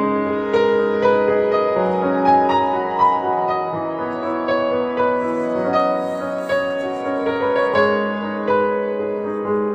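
Instrumental piano background music: notes struck about twice a second over held chords.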